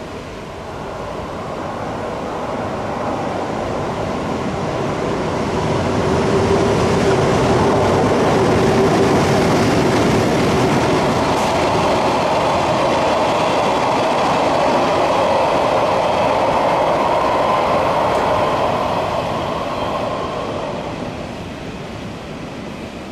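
EH200 twin-unit electric locomotive hauling a freight train of flat wagons past at speed: a steady running rumble with a hum of the locomotive's motors and the wagons' wheels on the rails. It builds over the first several seconds as the train arrives, stays loud through the middle and fades near the end as it moves away.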